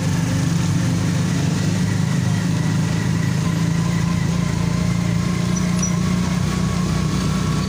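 Small motorcycle engine running at a steady cruising speed while riding along a street, a continuous low drone that holds its pitch throughout.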